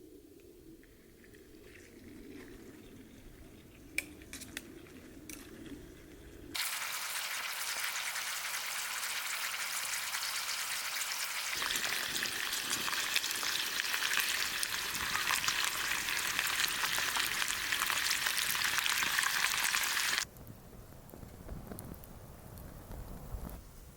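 Pork and green onions sizzling in a frying pan over a campfire: a dense, crackling sizzle that starts suddenly about six seconds in and stops suddenly near the end. Before it, a quieter stretch with a few small clicks.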